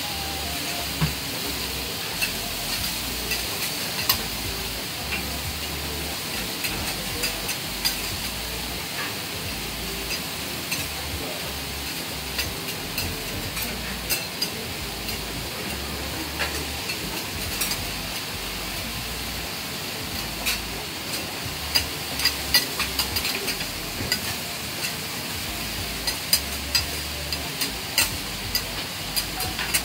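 Hiroshima-style okonomiyaki sizzling steadily on a flat steel teppan griddle. Metal spatulas make frequent sharp clicks and scrapes against the griddle as the cook presses and shifts the pancakes, with a busier run of clicks in the last third.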